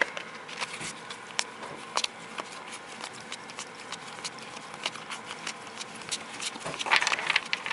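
A stack of baseball cards being flipped through quickly by hand, the card stock giving irregular light clicks and flicks, with a denser flurry of flicks near the end.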